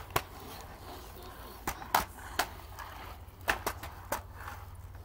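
RipStik caster board rolling over a concrete driveway, with a series of sharp clacks, several close together about two seconds in and again a little past three seconds.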